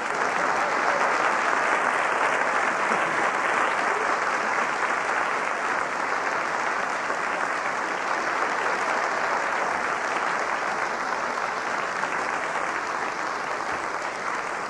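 Studio audience applauding, a long steady clapping that slowly tapers off toward the end.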